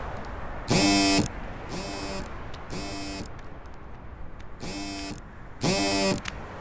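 Mobile phone ringing with an electronic ringtone: short buzzing tones about once a second, two of them much louder than the rest. A steady low background hum runs under it.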